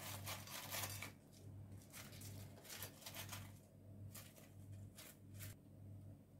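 Faint rustling and light crunching from fried potato sticks being picked by hand out of a glass bowl and laid onto a dish, in several short bursts over a low steady hum.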